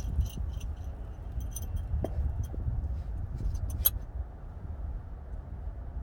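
Light metallic clicking and clinking of hand tools and sockets being handled, in short clusters with one sharper click near four seconds in, over a steady low rumble.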